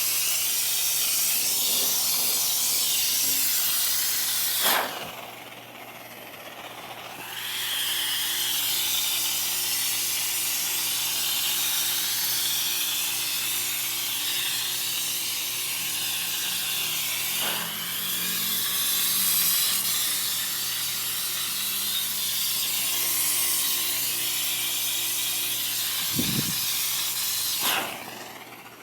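Paint spray gun hissing as it sprays, fed by a compressor converted from an air-conditioner/refrigerator compressor; the spray cuts off for about two seconds some five seconds in and again near the end, with the compressor's low steady hum underneath. A short knock about two seconds before the end.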